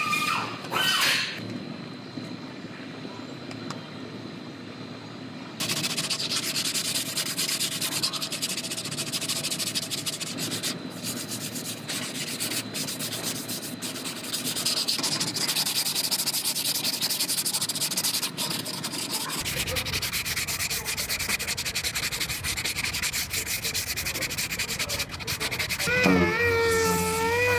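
Body filler being sanded on a repaired car quarter panel: a long stretch of steady scratchy rubbing, then near the end a random-orbital sander starts up with a wavering whine.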